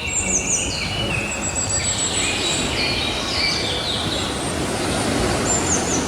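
Gentle sea waves washing steadily on a beach, with songbirds chirping over the surf, including a few very high chirps that slide downward.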